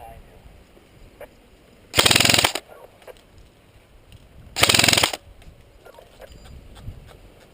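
Airsoft rifle firing two short full-auto bursts about two and a half seconds apart, each a rapid rattle of shots lasting about half a second.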